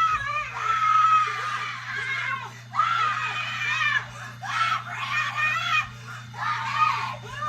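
A woman screaming in repeated high-pitched wails, each bout lasting a second or so with short breaks between, over a steady low hum.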